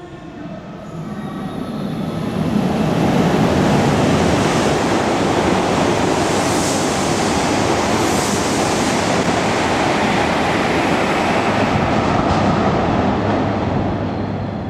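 A Hokuriku Shinkansen train rushing through the station at high speed: a rising rush of wind and rolling noise that holds loud for several seconds, then fades away.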